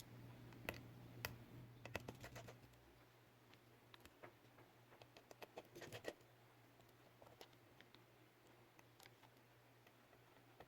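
Faint, scattered clicks and scratches of small tools on an opened smartphone as a sticker is picked and peeled off inside it, over a steady low hum.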